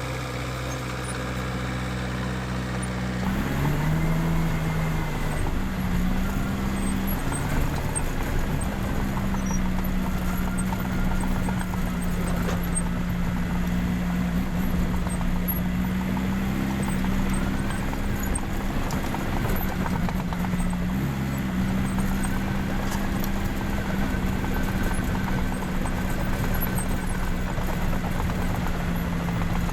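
Case 550G crawler dozer's diesel engine running at idle, then revving up about three seconds in and holding a steady working speed under load, its pitch sagging briefly now and then as it takes on more load.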